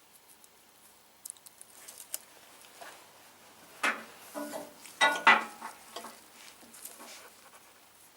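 Small clicks of parts being handled, then three short buzzing zips about four to five and a half seconds in, the last the loudest: plastic cable ties being ratcheted tight around motorcycle handlebar wiring.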